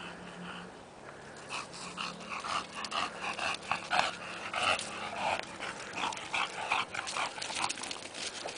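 Bulldog puppies vocalising at play: a rapid run of short yips and whines that starts about a second in and keeps coming several times a second.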